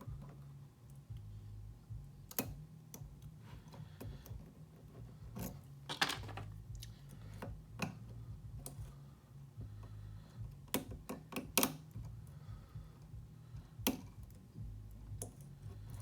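Lock pick and tension wrench working the pins of a pin-tumbler challenge lock: irregular small metallic clicks and taps, a few louder ones, over a steady low hum. The lock is still resisting, its last pins not yet set.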